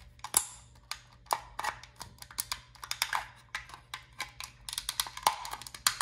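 Flathead screwdriver prying apart a snap-fit plastic night-light housing: a string of irregular sharp clicks, scrapes and creaks of plastic as the screwdriver works the seam.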